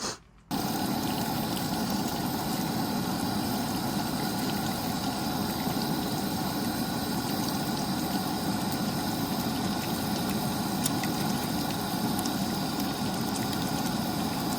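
Toyota 80 Series Land Cruiser's engine running steadily at an even speed, cutting in suddenly about half a second in.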